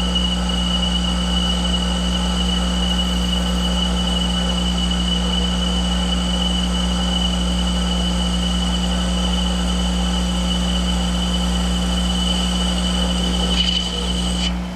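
Monarch 10EE lathe running under load while an insert tool takes a 50-thousandths-deep turning cut in hard pre-hard steel bar. It makes a steady hum with a steady high whine, which stops shortly before the end.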